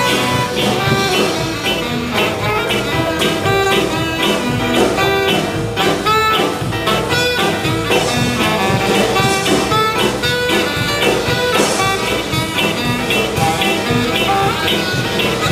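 Jazz music playing loud and continuous, with quick runs of short notes.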